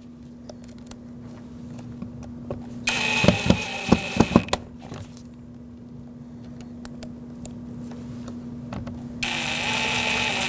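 Cordless power screwdriver running in two short bursts, driving in the screws that hold a door bracket back in place. Small clicks and taps from the fasteners and plastic parts fall in between.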